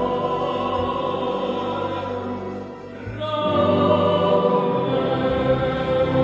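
Boys' choir singing held chords. The sound thins briefly at a phrase end, about halfway through, then swells into a louder sustained chord.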